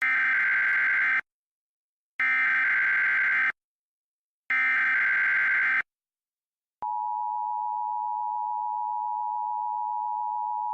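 Emergency Alert System tones: three identical bursts of shrill digital header data, each just over a second long with about a second's gap between. Then, about seven seconds in, the steady two-tone EAS attention signal starts and holds.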